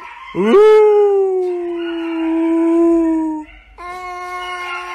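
Tabby cat yowling in long, drawn-out calls. The first swoops up at the start, holds for about three seconds and sags slightly before breaking off. A second long call starts a moment later.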